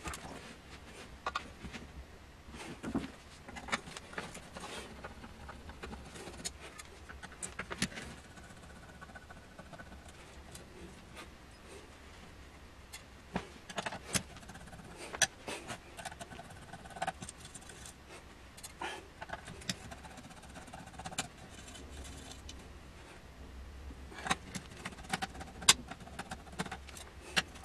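Irregular metallic clinks, knocks and rattles from an opened computer power supply unit's metal chassis and parts being handled and worked on, over a faint steady low hum.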